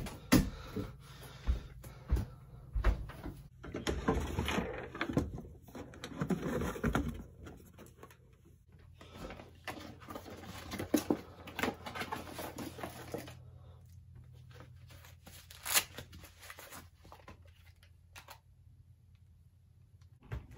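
Unboxing handling sounds: a cardboard box and paper packaging rustled, opened and handled, with irregular clicks and scrapes that thin out in the second half. A low steady hum runs underneath and stops near the end.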